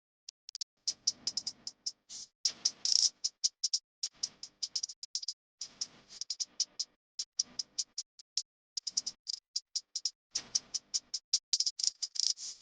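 Rapid, irregular sharp clicking and light tapping, many clicks a second, with a few duller, fuller stretches of knocking among them.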